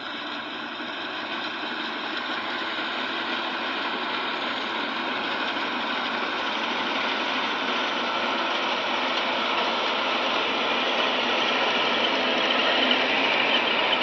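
Maxxi Bimo 102 rice combine harvester working, its engine and machinery running steadily while it cuts rice, growing louder throughout as it comes up close.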